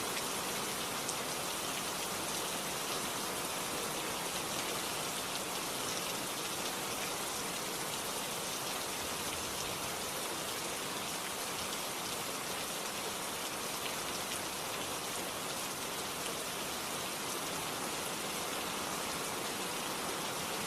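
Steady, even rain falling, a dense hiss of drops with scattered fine patters on a surface.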